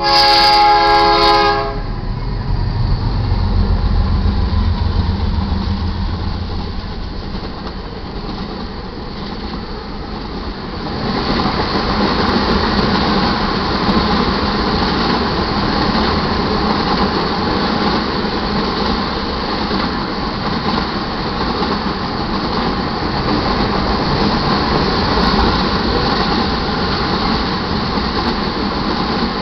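A short, loud blast of a diesel locomotive horn, then the deep rumble of GE diesel locomotives going by. From about ten seconds in comes the steady rolling noise and clickety-clack of a long string of loaded crude oil tank cars passing.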